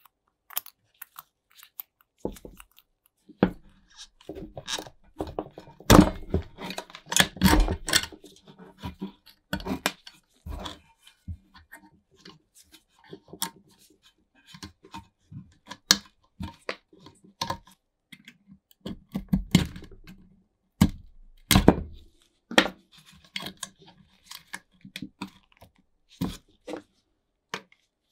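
Hand disassembly of a rusty steel flashlight housing and bracket: irregular crunching, scraping and clicking, with brittle old black insulation or rubber tearing and crumbling out of the wire hole. A few louder knocks come about six, seven and twenty seconds in.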